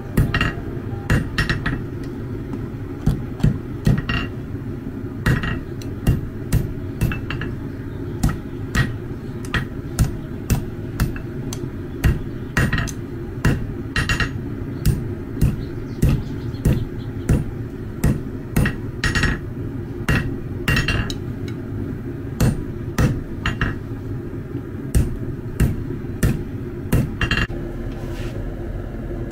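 Hand hammer striking a hot steel bar on an anvil face, forging a curled handle: sharp strikes about one to two a second in short runs with brief pauses, some leaving a short ring. A steady low hum runs underneath.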